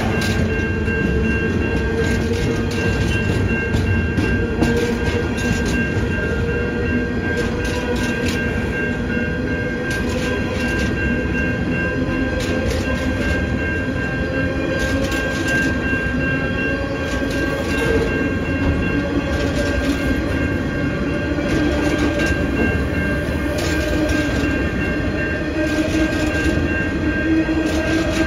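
Freight train hopper wagons rolling past, wheels clicking irregularly over the rail joints above a steady rumble. A steady high whine runs throughout, and a lower hum slowly rises in pitch.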